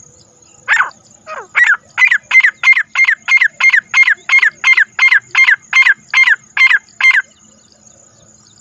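Francolin (teetar) calling: a loud series of about nineteen short falling notes, spaced out at first and then quickening to about three a second, stopping about seven seconds in.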